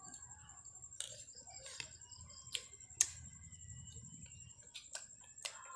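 Scattered sharp clicks and taps of someone eating by hand from a plate, about seven in all, over a faint steady high-pitched whine.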